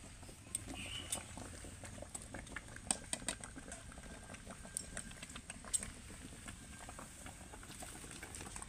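Liquid simmering and bubbling in a steaming pan on a wood-fired clay stove, with scattered sharp clicks and clinks, a cluster of them about three seconds in.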